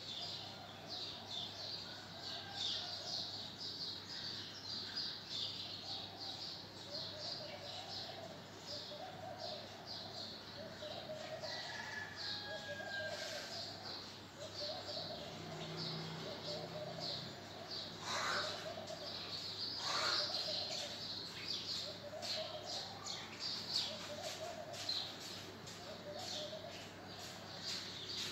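Graphite pencil shading on paper: a quick, rhythmic scratching of short back-and-forth strokes, a few to the second, with brief pauses as the pencil is lifted.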